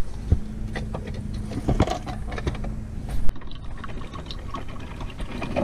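Scattered clicks and knocks over a low steady hum, then, after a sharp click about three seconds in, a Black+Decker drip coffee maker brewing with a faint gurgle of water.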